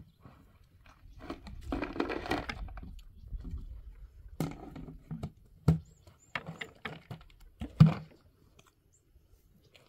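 Tea things being handled: a stretch of rustling and scraping, then several sharp knocks and clinks as glasses, a metal tray and plastic containers are picked up and set down, the loudest knock near the end.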